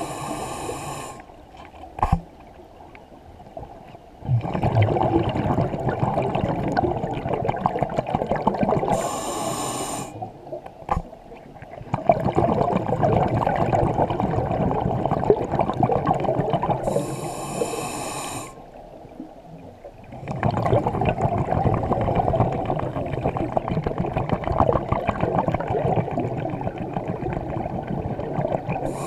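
Scuba diver breathing through a regulator underwater: a brief hissing inhale, then several seconds of bubbling exhaust, repeating about every eight seconds, three breaths in all. There are two sharp clicks between breaths.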